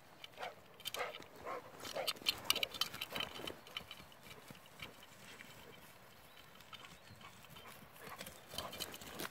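Footsteps crunching through dry, stony scrub, about two a second, with crackling from the brush. The steps are loudest in the first few seconds, go quieter, and pick up again near the end.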